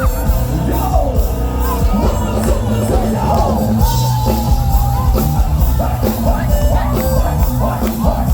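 Live band music played loud, with a steady beat and a singer's voice carrying the melody over it.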